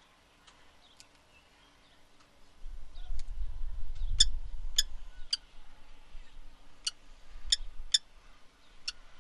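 Low bumping and about seven short, sharp clicks or taps, heard as a kestrel moves about in the nest while feeding her chicks. The sounds start about two and a half seconds in; the clicks are spaced roughly half a second to a second apart.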